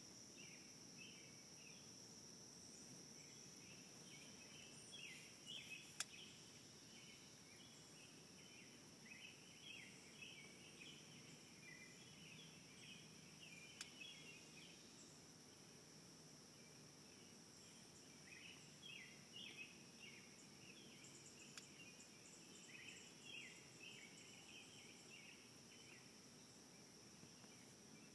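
Faint outdoor ambience: insects keep up a steady high-pitched drone while birds chirp over it again and again. Three sharp clicks come at about 6, 14 and 21 seconds in.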